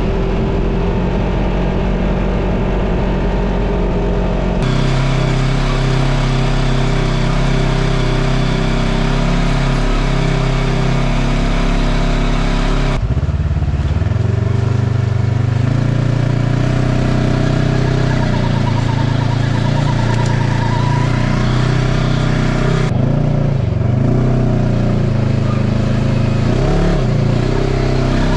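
Polaris RZR side-by-side's engine running as it drives, a steady engine drone whose pitch rises and falls with the throttle. The sound changes abruptly three times as the shots cut.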